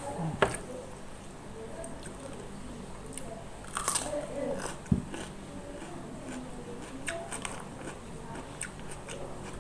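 A person biting and chewing crunchy food close to the microphone, with wet crunches and small mouth clicks. There is a sharp snap about half a second in and a louder burst of crunching about four seconds in.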